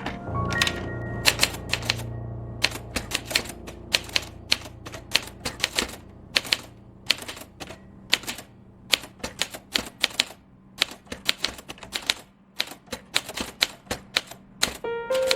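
Marathon 3000DLX Hangul typewriter (two-set layout) being typed on. Keys strike in quick, irregular runs of sharp clacks with short pauses between.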